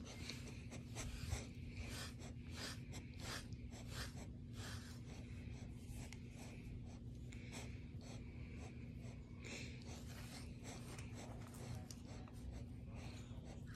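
Grooming tool raking through a dog's thick, shedding double coat in a steady series of short strokes, about two or three a second.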